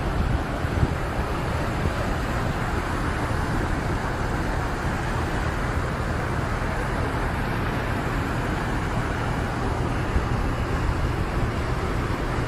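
Steady rushing noise of fast-flowing floodwater, with wind buffeting the microphone.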